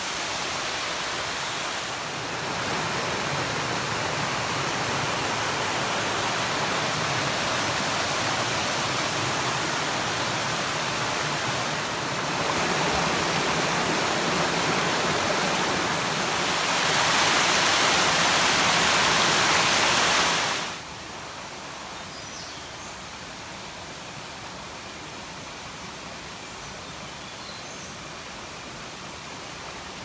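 Rain-fed forest stream cascading over rocks: a steady rush of water. It grows louder through the middle, then drops off suddenly about two-thirds of the way through, leaving a softer rush.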